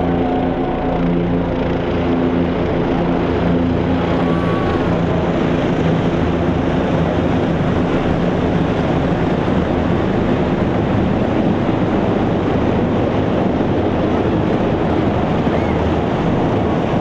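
A large formation of military helicopters passing overhead: a loud, steady drone of rotors and engines. A low humming tone sits on top in the first couple of seconds, then merges into a dense rushing noise.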